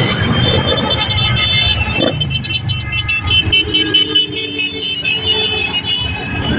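Motorcycles riding past in a convoy, engines running amid street traffic, with horns held in long steady tones from about halfway through.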